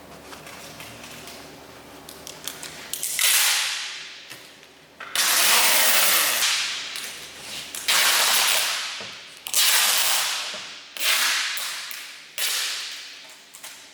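Clear tape being pulled off the roll in about six strips, each starting suddenly and fading over a second or two.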